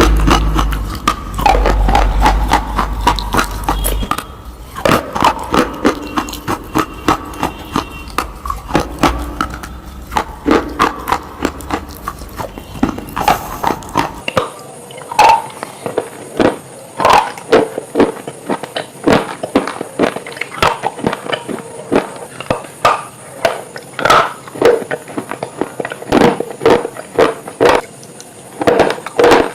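Crunching sound effects: sharp, short crunches repeating about one to two times a second. A low steady drone sits under them and stops about halfway through.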